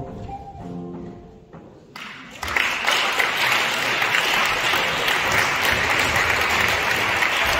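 The last notes of the music fade away, and about two seconds in an audience breaks into applause that carries on steadily.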